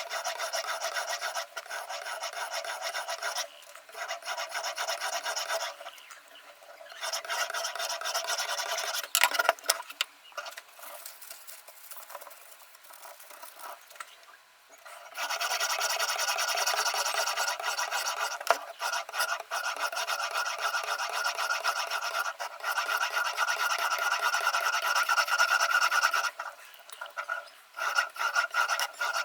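A sharpening stone on a Ruixin Pro RX-008 guided sharpener being stroked quickly back and forth along the edge of a VG10 steel chef knife: a dry, rasping scrape in fast runs. There are short pauses, a sharp click about nine seconds in and a softer stretch in the middle.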